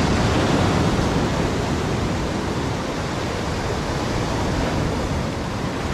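Sea surf breaking and washing over a rocky shoreline, a steady rushing hiss that is a little stronger in the first second or so.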